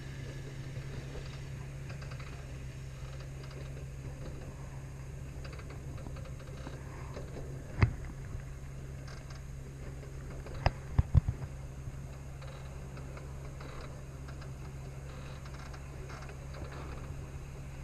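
Kiddie train rolling along its track: a steady low hum under light clicking and rattling. One sharp clack comes about eight seconds in, and a quick run of three or four clacks around eleven seconds.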